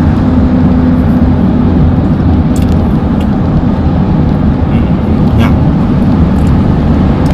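Steady road and engine noise inside a car's cabin at freeway speed: a loud, even low drone of tyres and engine with a faint steady hum.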